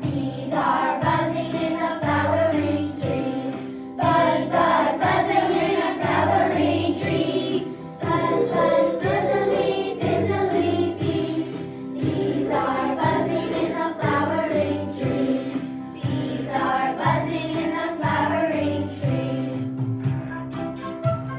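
A class of young children singing a song together over an instrumental accompaniment with a steady beat, in phrases of about four seconds each.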